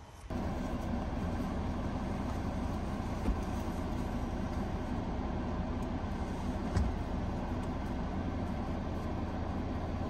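A vehicle's engine running, heard from inside the cab: a steady low rumble that starts just after the beginning, with a couple of faint knocks.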